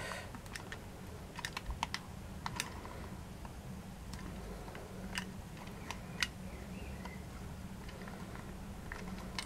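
Scattered light clicks and taps as hands turn and adjust a CD clock face fitted with a plastic clock mechanism and glued-on dominoes, lining the hanging hook up with the 12. The clicks are irregular and come in a cluster in the first few seconds, with a few more around the middle, over a faint low hum.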